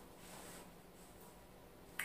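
Faint sounds of fingers sorting through crab shells in a glass bowl, ending in one sharp click.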